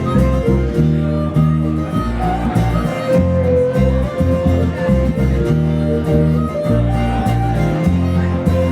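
Live blues band playing an instrumental break between verses, guitar to the fore over steady low bass notes.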